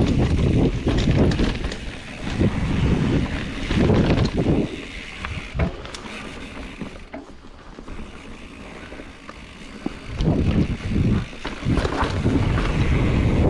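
Wind buffeting the microphone and a mountain bike's tyres rolling over a dirt forest trail at speed, with scattered clicks and rattles from the bike. The rumble eases for several seconds in the middle, then surges back near the end.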